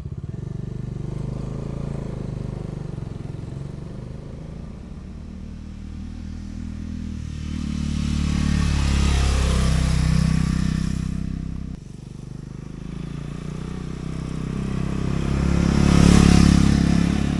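Motorcycle engine and exhaust at riding speed: a steady note at first, then two pass-bys in which the sound swells as the bike approaches and fades as it goes by. An abrupt drop about twelve seconds in separates the two passes.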